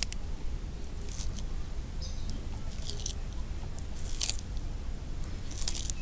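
African spurred (sulcata) tortoise biting into a crisp white vegetable stalk: about five sharp crunching bites, roughly one every second and a half.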